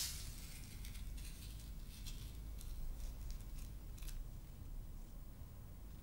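Faint wet squelches and soft clicks of hands working in bloody flesh, over a low steady hum.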